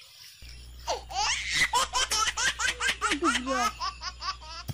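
High-pitched laughter: a fast run of 'ha-ha' bursts starting about a second in and lasting a few seconds, over a faint steady low hum.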